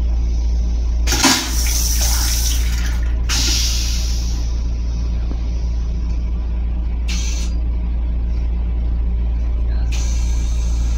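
Railcar restroom toilet flushing: a sudden loud burst about a second in as the bowl empties, then several shorter hissing bursts. The train's steady low running rumble is heard underneath.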